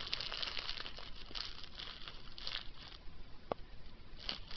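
Soft, irregular rustling and crinkling, coming in short patches, with a single small click about three and a half seconds in.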